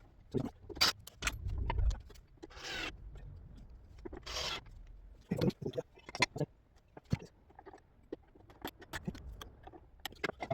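Hand tools and small metal parts handled while bolting a chop saw back together: irregular clicks and knocks, with two short scraping rasps about two and a half and four seconds in.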